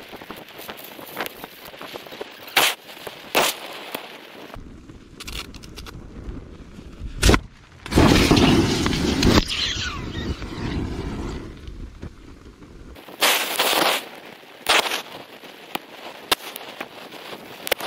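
Bosch PowerPack lithium-ion e-bike battery burning in thermal runaway: sharp cracks and pops of cells bursting, with one big crack a little after seven seconds in. From about eight seconds a loud rushing jet of flame vents for several seconds.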